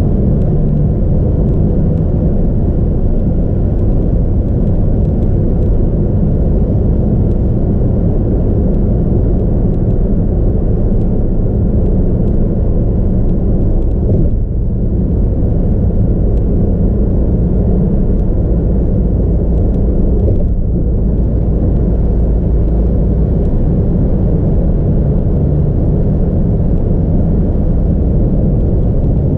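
Steady low road rumble of a car at expressway speed, heard from inside the cabin: tyre and engine noise, dipping briefly about halfway through and again a few seconds later.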